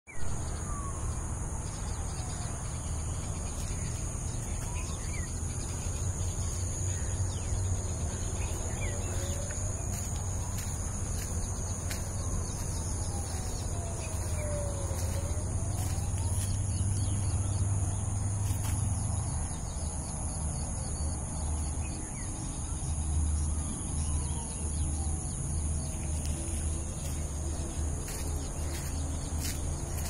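Outdoor field ambience: a steady high-pitched insect drone with a few bird calls over a low rumble. Occasional soft clicks and a few slow, faint gliding tones come through.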